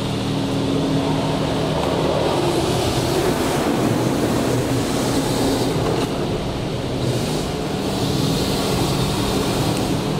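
High-pressure water jets of a LaserWash touch-free car wash spraying onto a car's body and windscreen, heard from inside the cabin as a loud, steady hiss over a low hum.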